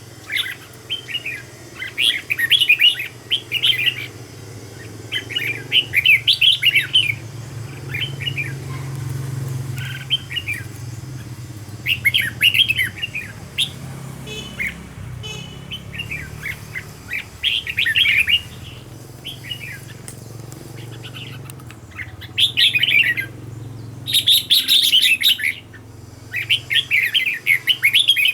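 Red-whiskered bulbul singing: short, quick warbling phrases repeated every second or two with brief pauses between them, over a low steady hum.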